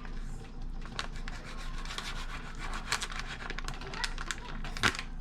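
A spoon stirring and scraping against the side and bottom of a pot of macaroni, a steady rubbing scrape with scattered light clicks and a sharper knock near the end.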